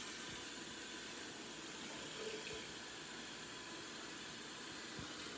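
Hot water pouring steadily into a coffee cup, a continuous even splashing.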